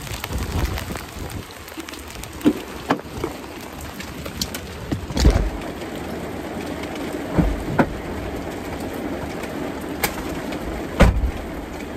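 Heavy rain falling on a car's roof, heard from inside the cabin as a steady patter, with several dull thumps from movement inside the car.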